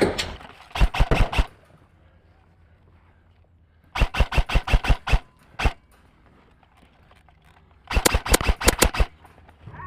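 Airsoft guns firing in three quick strings of shots a few seconds apart: about five shots just under a second in, about eight around the middle, and about eight near the end.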